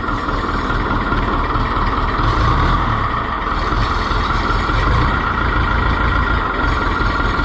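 Oliver 1365 tractor engine running steadily just after starting, first run in a while.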